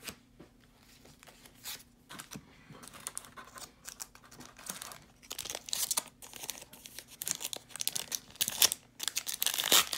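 Foil wrappers of Pokémon TCG booster packs crinkling as the cards are pulled out and handled, in irregular crackles that grow busier and louder through the second half.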